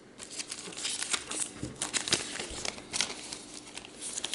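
Trading-card packaging and cards being handled: a busy run of crinkling and crackling, as of a foil wrapper or plastic sleeve being worked with the fingers.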